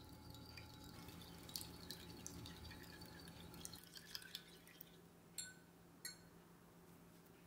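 Thin metal stirrer beating eggs into milk in a glass measuring jug: soft liquid stirring with light clicks of metal on glass, then two sharper taps near the end.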